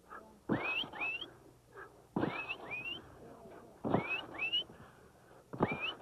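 Felt being rolled by men pushing and kicking a roll of wet wool in unison. Four strokes, about one every second and a half, each a thump followed by two short squeaks that rise in pitch.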